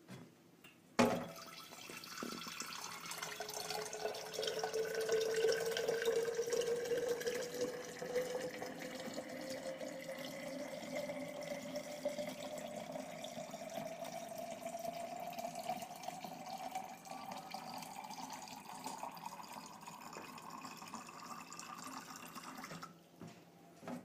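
Thin stream of reverse-osmosis filtered water from the filter faucet running into a glass jar, its pitch rising steadily as the jar fills; the flow stops near the end. A sharp click about a second in.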